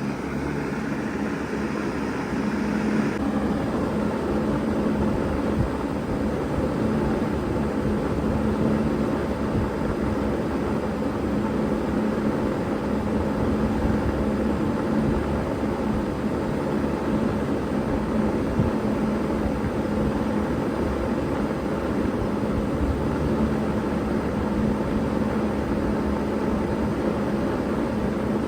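Bard 3-ton wall-hung heat pump running in heat mode: a steady compressor hum under the rushing air of its fan. A higher hiss drops away about three seconds in, and the unit then runs on evenly.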